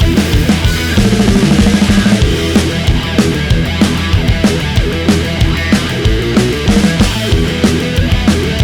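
Background rock music with a heavy drum beat and distorted guitar.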